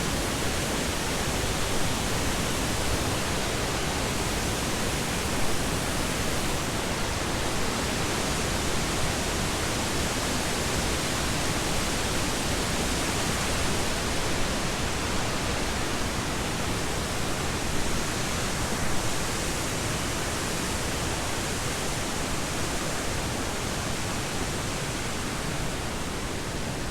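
Steady rush of whitewater falling through the rocky gorge below, an even hiss with no breaks.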